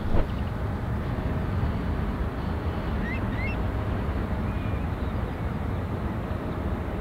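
Steady low rumble of an Airbus A350-900's Rolls-Royce Trent XWB jet engines as the airliner rolls out after landing, heard across open water. A brief thump about a quarter-second in is the loudest moment, and a couple of faint chirps come near the middle.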